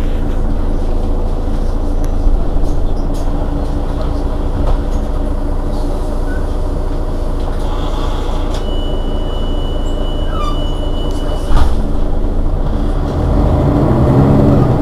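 Mercedes-Benz Citaro city bus engine idling steadily at a standstill. About two thirds of the way through, a thin high tone holds for about three seconds and is cut off by a single sharp knock. Near the end the engine gets louder.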